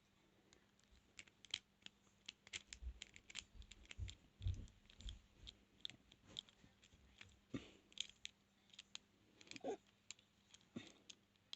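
Faint, irregular metallic clicks and scratches of a lock pick working the pins of a transparent practice padlock, with a few dull knocks about halfway through.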